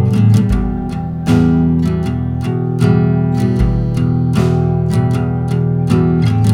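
Background music: plucked acoustic guitar over a steady bass line.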